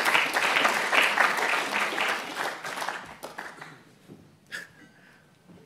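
Audience applauding, the clapping fading out about three and a half seconds in.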